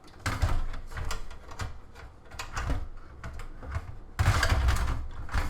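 Repeated clicks, knocks and rattles of computer parts and cables being handled and pushed into place in a PC, growing louder and denser about four seconds in.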